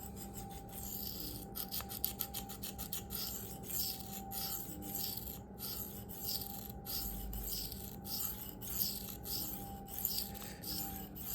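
Steel knife blade (a K390 Spyderco Endura 4) stroked freehand across a Venev F150 sharpening stone: a rasping scrape repeated in a steady back-and-forth rhythm, about two strokes a second, refining the edge.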